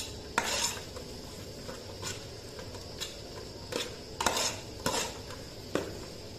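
Metal spoon stirring a thick bitter gourd and egg stir-fry in a metal pot, with irregular clinks and short scrapes of spoon against the pot, about one or two a second.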